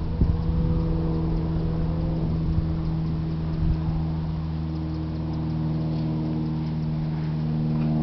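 A steady, low engine drone that holds the same pitch throughout, with a short gliding tone about half a second to two seconds in.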